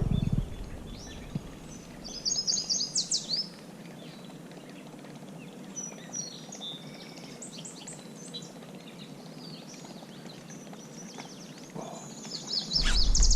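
Birds calling: a quick run of high chirps about two seconds in, scattered fainter chirps after it, and another burst of chirps near the end. A low rumble comes in just before the end.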